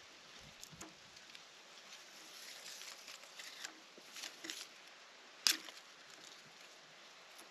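Faint handling noise of hands working a coax cable connector and a roll of tape: light rustling and small clicks, with one sharper click a little past halfway.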